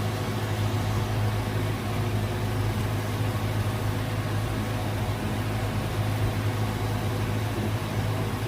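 Cessna light aircraft's piston engine and propeller running with a steady, even drone.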